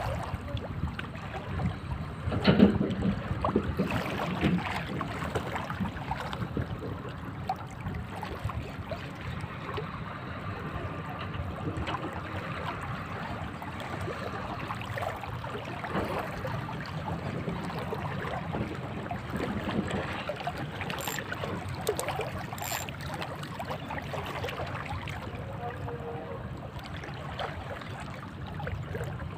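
Steady wash of sea water with wind noise, broken by a few scattered knocks.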